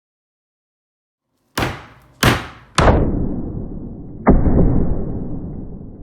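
Meat tenderizer mallet pounding beef: three sharp hits about half a second apart, then a heavier, duller blow, each fading out slowly.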